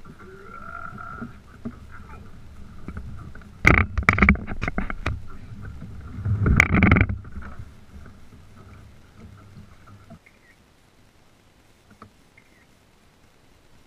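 Knocks and clatter on a plastic fishing kayak as gear is handled aboard, in two loud bursts, about four and seven seconds in, over a faint low rumble that fades away near the end.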